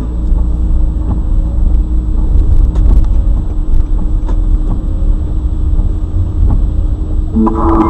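Car cabin rumble of road and engine noise as picked up by a dashcam's microphone while driving, with a steady low hum and scattered faint clicks. A short tonal sound comes near the end.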